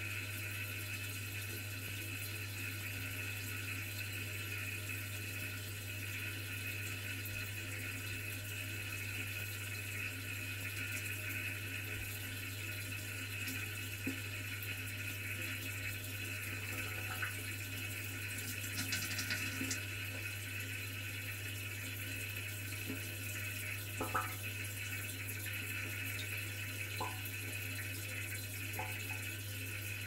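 Miele dishwasher taking in its water supply, heard from inside the wash tub: a steady hiss of inflowing water over a steady low hum, with a few faint ticks in the second half.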